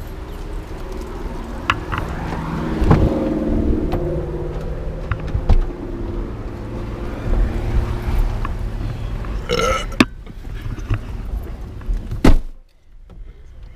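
A man lets out a long, drawn-out noise of escaping gas lasting about two seconds, with a short squeaky rising sound a few seconds later. Near the end a pickup truck door shuts with a sharp thud, and the sound turns to the quieter inside of the cab.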